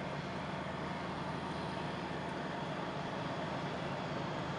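Diesel locomotive engine working hard under power, a steady low drone that slowly grows louder as the train approaches.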